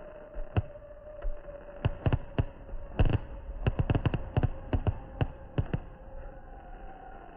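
Fireworks going off: a run of sharp, irregular bangs and cracks, coming thickest in the middle and thinning out toward the end.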